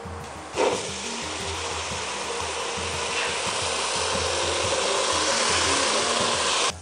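Water poured into a large aluminium pot of rice and taioba sautéed in hot oil, setting off a sudden loud sizzle about half a second in. A steady hiss and sizzle follows, growing slightly louder, and cuts off sharply near the end. This is the moment the cooking water goes in on the sautéed rice.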